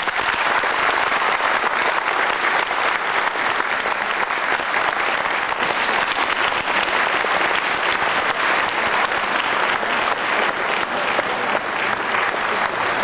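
Audience applauding, a steady dense clapping that keeps up throughout.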